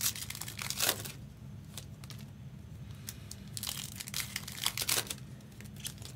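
Plastic trading-card pack wrapper crinkling and tearing as it is opened, in two bouts of rustling: one at the start and one about four seconds in. A steady low hum runs underneath.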